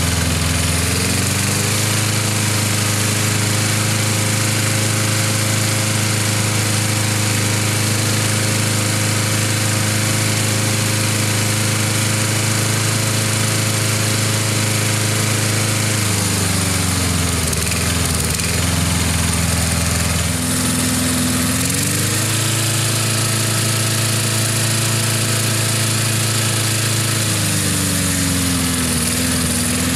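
Briggs & Stratton single-cylinder four-stroke lawn mower engine running, not yet fully warm. It is brought up to a higher steady speed, drops back to a lower speed about 16 s in, is raised again about 22 s in, and drops back again near the end.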